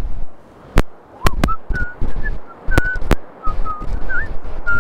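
A few short whistled notes, some sliding in pitch, begin about a second in. Several sharp clicks and low thuds are heard among them.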